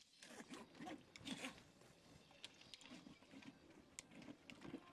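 Near silence: faint room tone with a few soft clicks and faint low murmurs.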